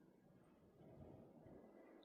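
Near silence: faint low background noise.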